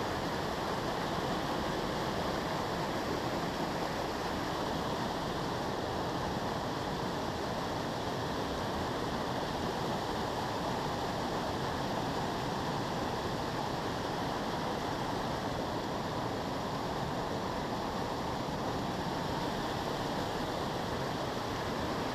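Steady rush of water pouring down a concrete dam spillway and churning white at its base.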